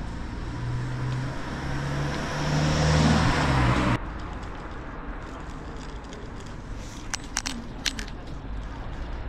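A motor vehicle passing close on the street, its engine hum and tyre noise growing louder for about four seconds, then cutting off suddenly. Quieter street background follows, with a few sharp clicks near the end.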